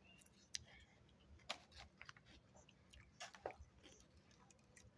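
Faint chewing close to the microphone, a mouthful of coleslaw: scattered soft wet clicks and small crunches, a few louder about a second and a half in and again past three seconds.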